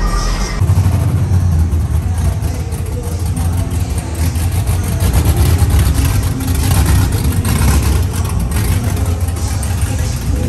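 A vehicle engine running, coming in suddenly just after the start, its low sound rising and falling in loudness.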